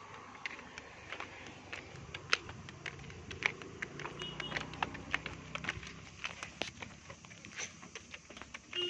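Footsteps going down stone steps: a string of irregular light clicks and scuffs, with a low hum rising in from about two seconds in and fading near six seconds.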